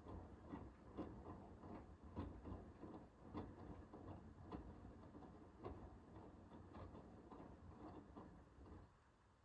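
Hoover H-WASH 500 washing machine drum turning during the wash phase of a Cotton 60 cycle: a faint, even run of soft knocks and clicks, several a second, as the laundry tumbles. It stops near the end.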